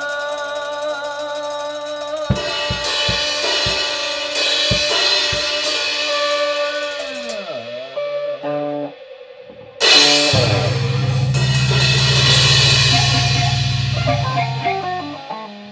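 Rock band jamming on electric guitars, bass and drum kit. Sustained guitar notes ring at first, then the drums and cymbals come in about two seconds in. After a short drop-out past the middle, the full band comes back with a heavy bass line.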